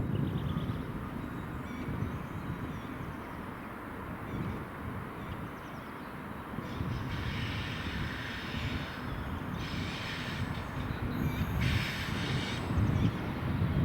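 Diesel-hauled train running by: a steady low rumble of locomotive and wheels on rail, with several short higher-pitched bursts of rail noise in the second half.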